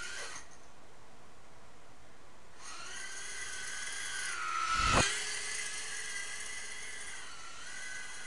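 Stock brushed coreless motors of a Blade Inductrix micro quadcopter whining at high pitch, the tones shifting with throttle. The whine thins out for about two seconds near the start, then returns. About five seconds in comes a brief, louder swish that falls steeply in pitch.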